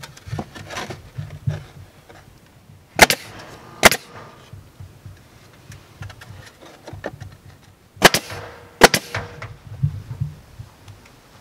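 Pneumatic crown stapler firing four times, in two quick pairs a few seconds apart, two staples to a shingle, fastening cedar shingle siding.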